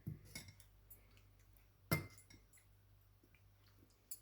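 A few light clinks of a spoon against a soup bowl, the clearest about two seconds in with a brief ring.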